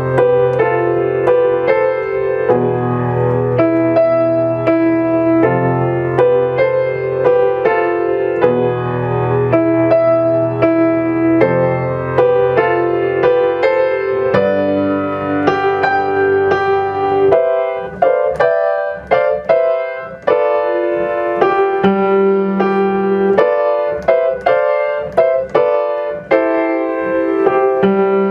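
Grand piano playing a moderate-tempo piece with both hands: right-hand chords over a sustained low bass line. About two thirds of the way through, the low bass drops out and the chords become shorter and more detached. A metronome clicks the beat underneath.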